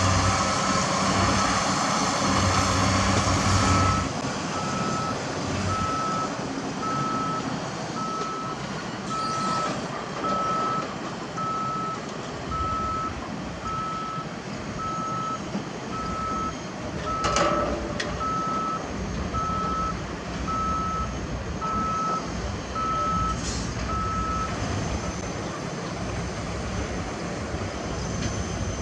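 Construction machine's reversing alarm beeping steadily, about once a second, over the running of heavy diesel machinery; the engine is louder for the first few seconds and the beeping stops near the end. A single sharp knock sounds about two-thirds of the way through.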